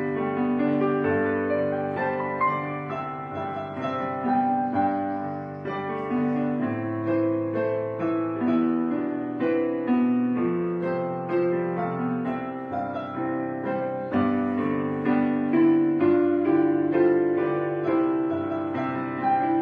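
Background piano music, a slow melody of overlapping notes over held chords.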